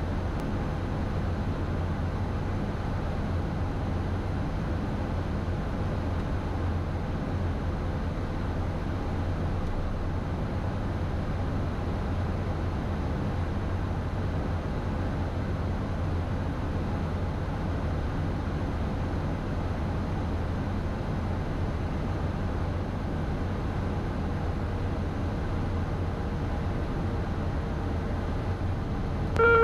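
Steady cabin noise of a Beechcraft Premier I business jet in flight: air rushing past the cockpit and the hum of its twin turbofan engines, even and unchanging, with a faint steady whine. A louder steady electronic tone starts right at the very end.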